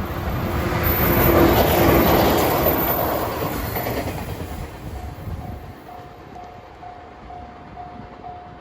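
A 413-series electric train passing over a level crossing, loudest about two seconds in and then fading away. As it recedes, the crossing's warning bell is heard ringing a little over twice a second.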